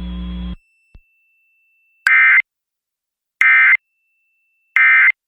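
Emergency Alert System end-of-message code: three short, identical bursts of screechy digital data tones, evenly spaced about a second and a third apart, signalling the end of the alert. Before them, a steady hum stops about half a second in.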